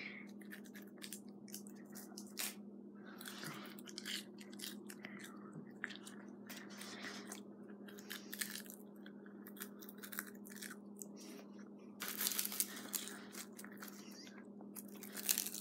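Small wet mouth and chewing sounds and breaths close to a phone's microphone, scattered and irregular, louder for a moment about twelve seconds in, over a steady low hum.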